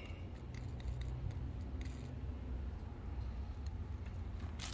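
Quiet room tone: a steady low hum with a few faint light clicks.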